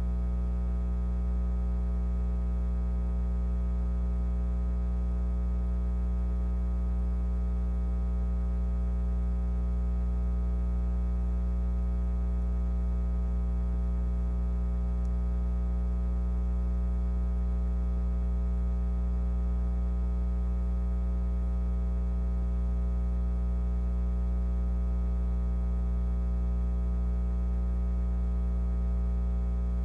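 Steady low electrical hum, mains-frequency buzz with a stack of evenly spaced overtones, unchanging in pitch and level.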